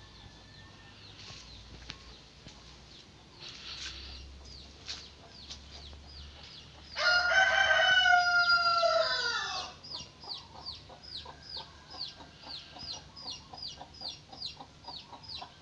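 A rooster crows once, loud and long, with the call dropping in pitch at the end. It is followed by a rapid series of short, high chirps, about three a second.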